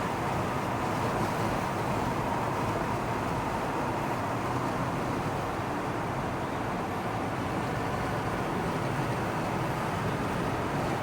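Steady road and traffic noise from motor vehicles, an even rumble and hiss with no distinct events.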